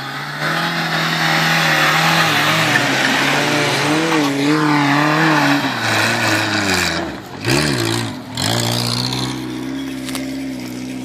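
Suzuki Samurai 4x4's engine revving hard under load as it climbs a steep dirt slope, its pitch wavering up and down over a rush of tyre and dirt noise. Around seven to eight seconds in the note drops sharply twice, then settles to a steadier, quieter tone.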